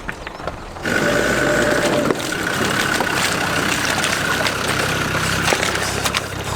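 Off-road 4x4's engine running, starting abruptly about a second in and holding steady, with scattered clicks and knocks.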